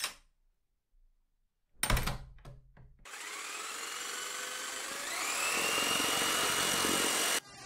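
A few knocks, then an electric power tool's motor starts and runs steadily, its whine rising in pitch about five seconds in, before cutting off suddenly near the end.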